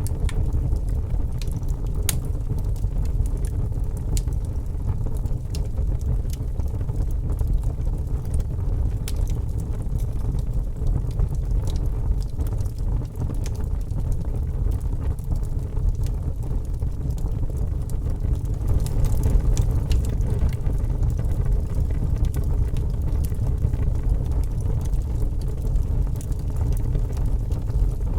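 Fire crackling: a steady low rumble with sharp crackles and pops scattered irregularly throughout.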